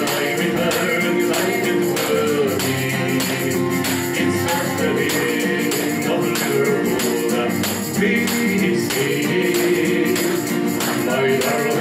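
Live acoustic song: a woman singing to a strummed acoustic guitar, with hand percussion shaken in a steady beat.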